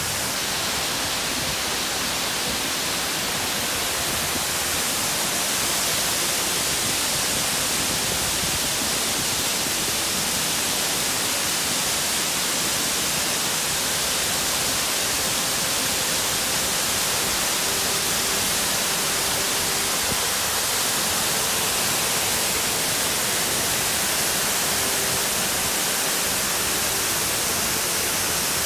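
Waterfall with water pouring over rock ledges into a pool, a steady, even hissing rush.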